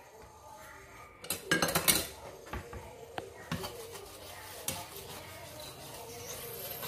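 A spatula clattering and scraping in a frying pan of hot oil as garlic powder is stirred in. There is a burst of clatter about a second and a half in, then a few separate knocks.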